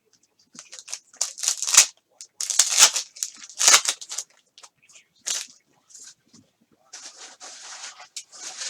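Trading-card pack wrapper being torn open and crinkled, in several short rustling bursts with a longer stretch near the end.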